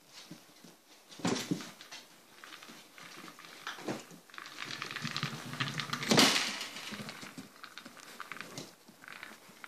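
Flat-coated retriever puppies pushing a treat-dispensing ball across a tiled floor: the ball knocks and rolls on the tiles amid the patter of small claws. Knocks come about a second in, near four seconds and, loudest, about six seconds in, with a busy stretch of clattering around it.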